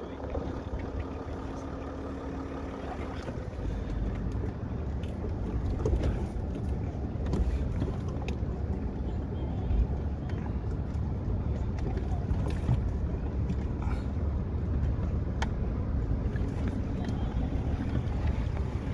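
Low engine and drivetrain rumble inside a Land Rover Discovery's cabin as it drives a rough off-road dirt track, with scattered knocks and rattles as it goes over bumps. The rumble grows a little louder after about four seconds.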